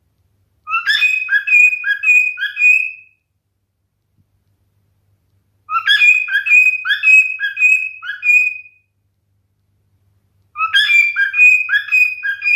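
Male cockatiel whistling its song phrase three times, each phrase a quick run of four or five repeated two-note chirps, with a pause of about two seconds between phrases.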